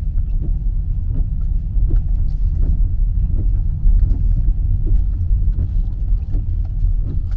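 Car driving on a rough mountain road: a loud, steady low rumble with frequent short knocks and jolts.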